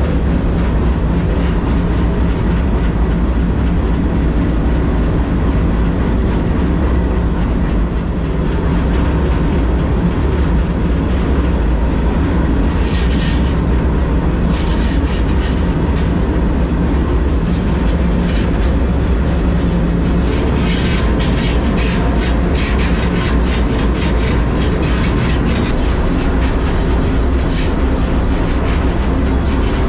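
Freight train rolling along, heard from the end platform of a covered hopper car: a steady loud rumble of wheels on rail with rattling car steel and clickety-clack from the rail joints. Sharper metallic clatter flares up about 13 seconds in and again through the second half.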